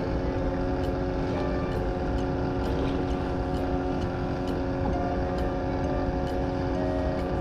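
Boat engine running steadily: an even, unchanging hum over a low rumble.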